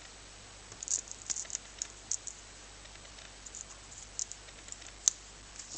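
Faint, scattered ticks and light rustles of photo prints being handled, with one sharper click about five seconds in.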